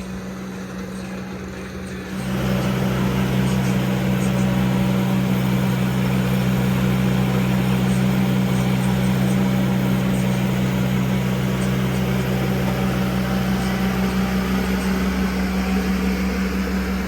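Skid steer engine running steadily, growing louder and fuller about two seconds in and then holding a constant pitch.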